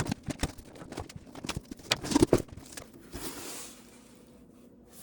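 Printer box being opened and its styrofoam packaging handled: a run of knocks and scrapes of cardboard and foam, loudest about two seconds in, followed by a short sliding hiss.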